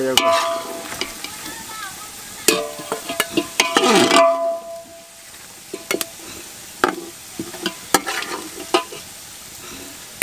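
Steel spoon scraping and clinking against a steel pot as golden-fried onions are lifted out of hot oil into a steel bowl, with some clinks ringing briefly. The oil sizzles faintly underneath, and there is a louder scrape about four seconds in.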